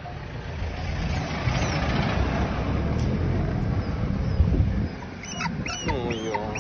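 A tiny puppy crying in a string of short, high squeals near the end, each rising and falling in pitch. Before that, a rumbling noise fills the first few seconds.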